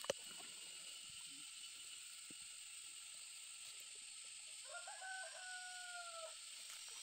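A rooster crowing once, about five seconds in: a few short stepped notes, then one long held note that falls slightly at the end. Underneath is a steady high hiss, and a sharp click comes right at the start.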